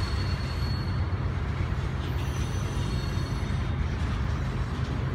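Coal train hopper cars rolling past: a steady low rumble of steel wheels on rail, with faint thin high squeals near the start and again from about two seconds in.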